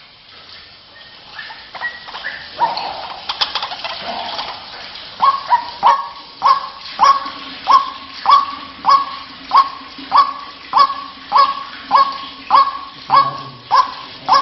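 White-breasted waterhen calls: irregular croaking notes at first, then from about five seconds in a steady run of repeated "kruak" notes, about one and a half a second. A steady low drone joins about halfway through.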